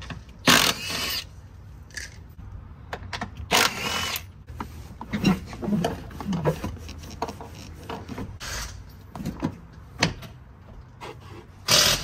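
Handheld cordless power driver running in several short bursts, spinning out the bolts that hold a car's rear seat back, with knocks and rustling from the seat being handled in between.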